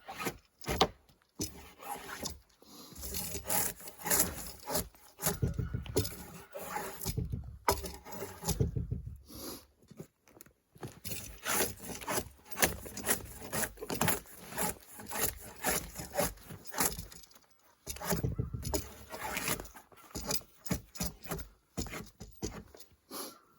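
Wood being worked by hand: irregular scraping and rubbing strokes on boards, pausing briefly about 10 and 17 seconds in.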